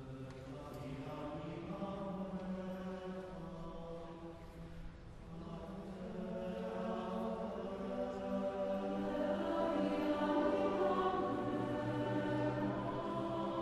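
Mixed choir singing a cappella: sustained, slowly moving chords that swell louder in the second half.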